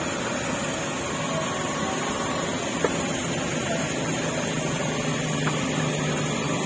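Heavy rain making a steady, even hiss, with a single faint tick about three seconds in.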